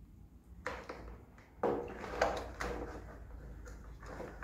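Knocks, clicks and rattles of a plastic welder kit being handled: small plastic staple boxes and the plastic welder knocked about in their hard case.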